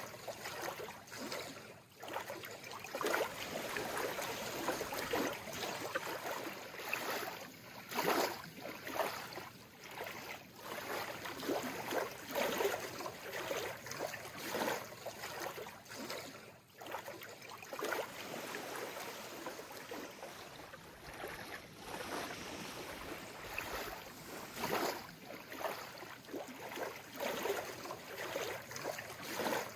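Calm sea water lapping gently, in small irregular splashes that rise and fall.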